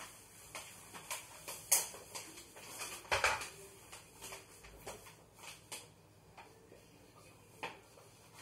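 Irregular light clicks and taps, about a dozen, with one heavier knock about three seconds in: a marker being handled against a writing board.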